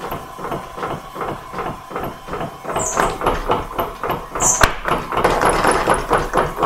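Beaudry Peerless mechanical power hammer running, its ram striking in an even rapid rhythm of about four blows a second. About three seconds in the blows come faster and louder as the treadle is pushed further down. A steady whine from the drive runs underneath, with a few short high squeaks.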